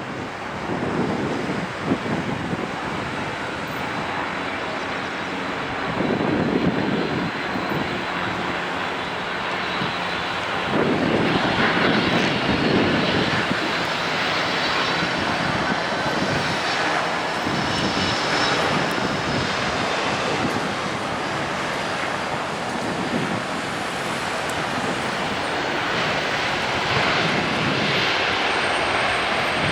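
Jet engines of a FedEx Airbus A300 freighter on arrival, a steady engine noise that grows slightly louder and brighter, with gusts of wind on the microphone.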